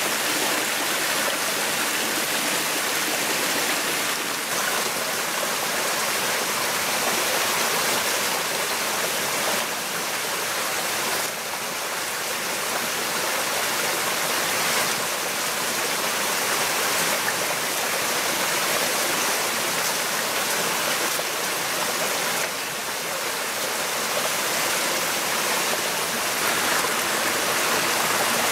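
Small rocky forest stream rushing and splashing over boulders, a steady wash of water noise.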